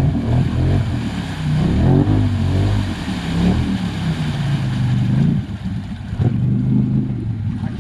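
850 twin-cylinder ATV engine revving up and down as the quad pushes through a deep mud hole.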